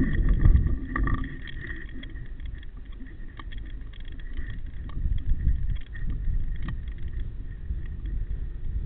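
Low, uneven rumble of wind and handling noise on a camera mounted on a paintball marker as the player moves, swelling about half a second in, around five seconds in and near the end, with a few faint clicks.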